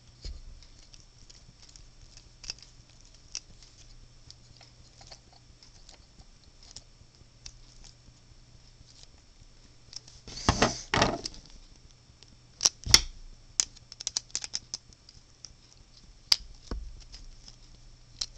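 Small plastic parts of a DIY speedcube clicking and tapping as a center piece is screwed onto the core by hand. Scattered light clicks, with a louder burst of handling noise about ten seconds in and a sharp click a couple of seconds later.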